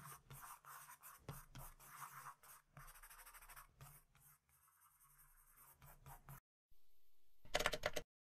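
A pen scratching on paper in quick, quiet strokes as lines are drawn. Near the end there is a short, louder pitched sound.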